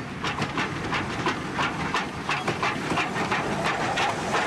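Steam locomotive working under power, its exhaust chuffing in a steady rhythm of about four beats a second.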